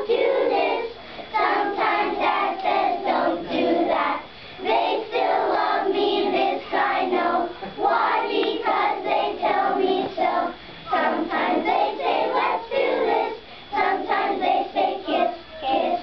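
A class of young children singing a song together in unison, in sung lines broken by short pauses for breath every few seconds.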